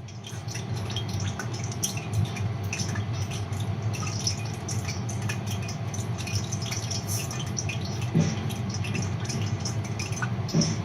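Cooking grease in a pan on the stove crackling steadily as it heats toward searing temperature, a dense patter of small pops over a steady low hum, with a soft knock about eight seconds in.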